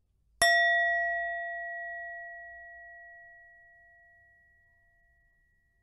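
Tibetan singing bowl struck once about half a second in, ringing with a few steady tones that fade slowly over several seconds; the bell is the cue to begin the dive.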